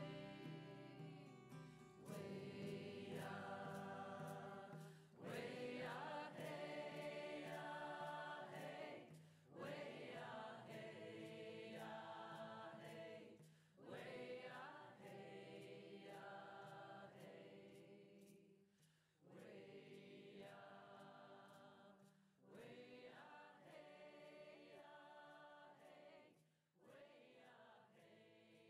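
Soft choral singing: a group of voices holding chords in phrases a few seconds long, each starting suddenly and fading away before the next begins.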